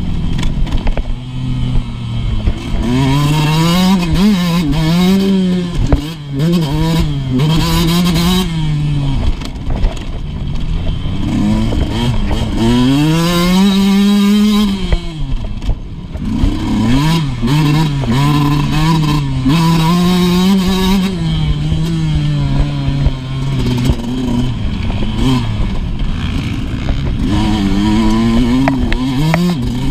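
Motocross dirt bike's engine on the track, revving up and falling back again and again as the rider works the throttle through the corners and straights, with one long climb and drop in pitch about halfway through. Short knocks and clatter from the bike over the bumpy dirt run under the engine.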